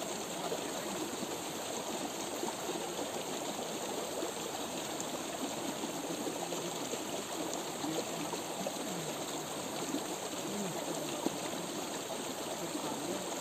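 A stream running steadily, an even, unbroken water noise.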